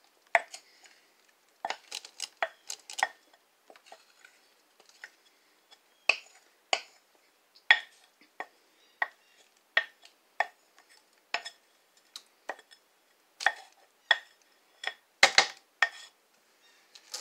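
A utensil scraping and tapping against a glass mixing bowl as thick gravy mix is worked out of it into the crockpot. It comes as a string of sharp, irregular clicks, one or two a second, with a louder knock about fifteen seconds in.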